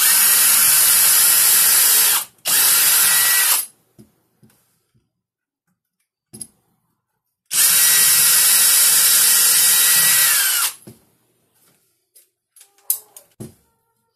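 Power drill boring into the plywood baseboard panel in three runs, a longer one at the start, a short one, then a longer one whose whine falls as the motor winds down. A few light knocks and clicks follow near the end.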